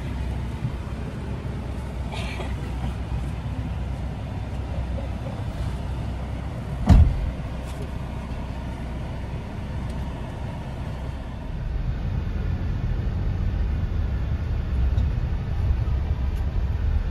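Road and engine rumble of a passenger van heard from inside the cabin while it drives, with a single sharp thump about seven seconds in. The rumble grows a little louder near the end.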